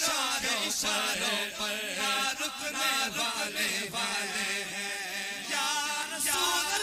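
Two male voices singing an Urdu devotional tarana together into microphones, a chanted melody that runs on without a break.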